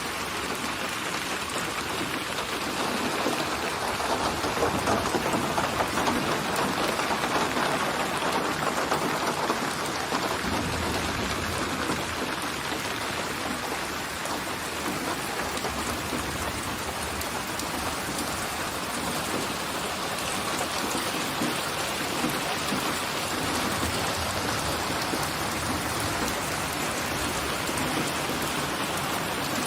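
Steady heavy rain falling, swelling a little a few seconds in, with a low rumble of distant thunder about ten seconds in.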